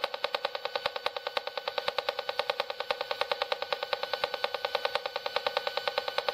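Handheld RF meter's audio output sounding a WiFi signal: a steady, rapid buzzing pulse of about ten clicks a second, the beacon rhythm of a wireless router.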